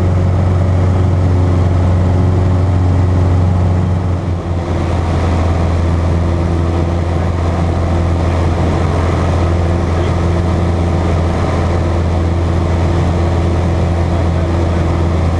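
Cessna Cardinal's four-cylinder Lycoming engine and propeller droning steadily in cruise, heard from inside the cabin, with a brief dip in level about four seconds in.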